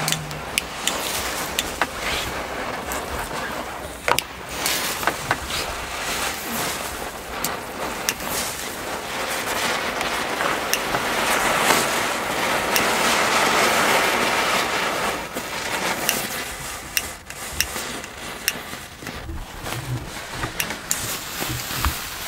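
Small Class 1 ground fireworks burning on grass: a continuous hiss with scattered sharp crackles and pops, swelling louder around the middle and easing off toward the end.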